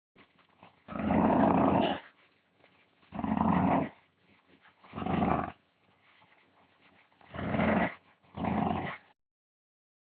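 A dog growling in five rough, low growls of about a second each, with short breaths between them.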